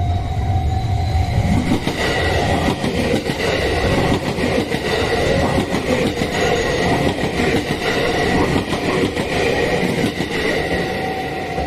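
A train passes over a railway level crossing. Its wheels rumble and clatter over the rails for about nine seconds, while the crossing's warning bell keeps ringing a steady tone that stands out again as the train clears near the end.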